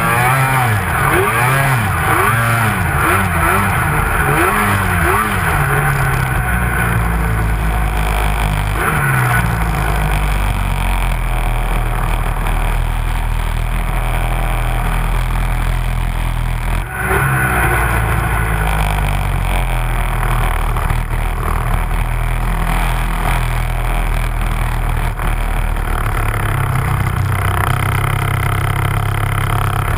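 Snowmobile engine running hard through deep snow, revving up and down repeatedly in the first several seconds, then holding a steadier drone with a brief dip about 17 seconds in.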